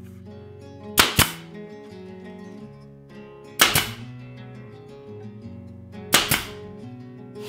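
Pneumatic 23-gauge pin nailer driving pins into hardwood trim: three sharp cracks about two and a half seconds apart, each a quick double snap. Acoustic guitar background music plays underneath.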